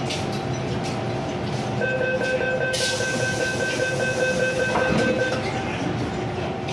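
MTR M-Train door-closing warning beeper sounds as a rapid beeping tone for about three and a half seconds while the car doors close, over the steady hum of the standing train. A hiss joins it partway through, and a short knock comes near the end as the doors shut.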